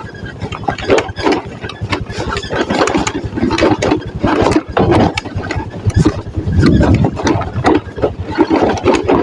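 Motorcycle engine running on a rough off-road track, its sound swelling and dropping unevenly.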